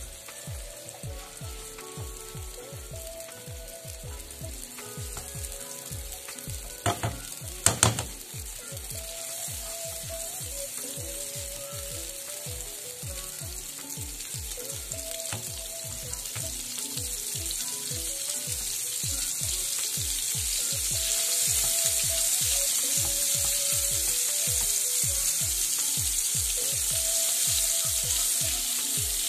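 Margarine melting and sizzling in a non-stick wok while a silicone spatula stirs it. The sizzle grows louder in the second half as the fat heats. There are two sharp knocks about seven seconds in.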